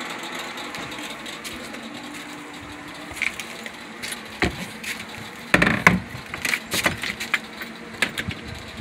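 Footsteps and handling knocks on a fiberglass boat: quiet at first over a faint steady hum, then a run of sharp clunks and clicks about halfway through as someone moves across the deck and steps down into the cabin.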